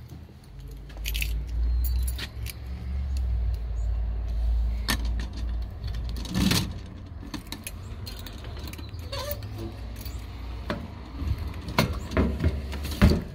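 A bunch of keys jangling, with sharp metallic clicks and rattles that cluster near the end, as a mailbox is unlocked and opened. A low rumble sits under it, heaviest in the first half.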